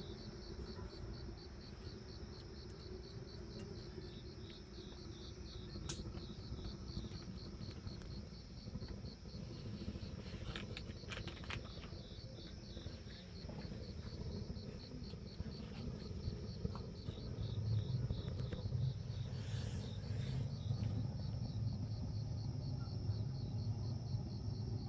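Cricket chirping in a steady, evenly repeating pulse. A few sharp clicks come through, and a low hum grows louder about two-thirds of the way in.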